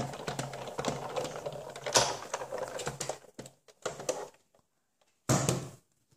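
A hand-cranked Sizzix Big Shot die-cutting machine rolling a stack of acrylic plates, a die, cardstock and mats through its rollers, making a dense run of clicks for about three seconds that thins out; the die is pressed into the cardstock to emboss it rather than cut it. A single knock about five seconds in.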